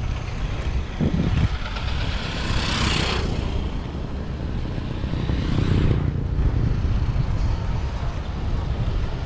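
Wind rushing over the microphone of a road bike rolling along asphalt, a steady low rumble. A louder whoosh swells and fades about three seconds in.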